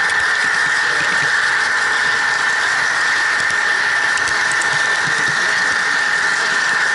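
Model train running along the track, heard from on board: a steady high whine over rattling wheel noise on the rails.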